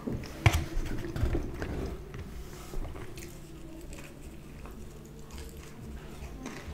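Someone biting into and chewing a slice of thin-crust pizza close to the microphone, with a few sharp clicks in the first two seconds and softer chewing after.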